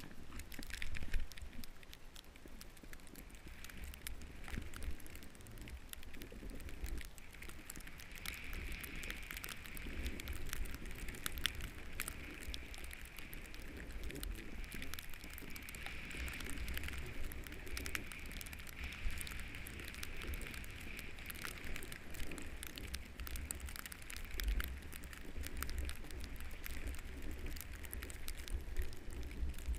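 Snowboard sliding over fresh snow: a steady scraping hiss with many small crackles, and wind rumbling on the microphone.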